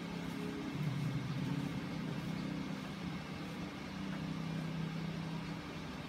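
A motor or engine running steadily: a low hum that shifts slightly in pitch about a second in and again near the end.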